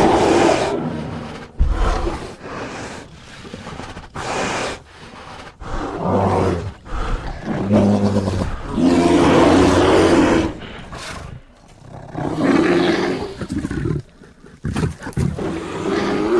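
A bear roaring: a run of deep, drawn-out calls, one after another with short pauses between them, the longest about nine seconds in.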